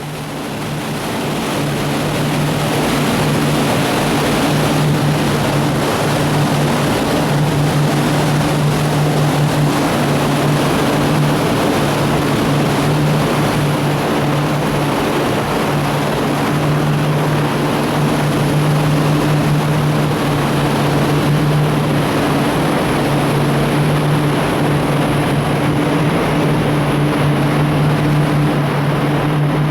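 A motor cruiser's engines running steadily under way, a constant low drone over the rush of wind and water. It fades in over the first couple of seconds.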